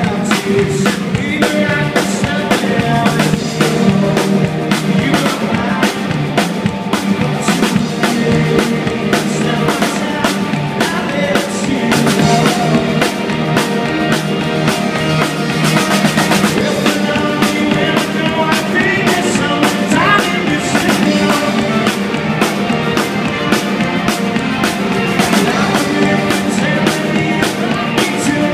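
A rock band playing live on stage: electric guitars and a drum kit keeping a steady beat.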